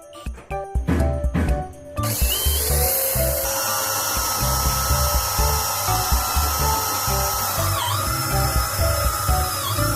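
Power drill running steadily at high speed, starting about two seconds in, its pitch briefly dipping twice near the end as it bites under load. Background music with a steady beat plays throughout.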